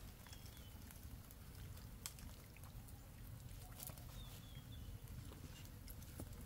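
Faint outdoor ambience: a low steady rumble with scattered small clicks and crackles, and two short high chirps, one early on and one about four seconds in.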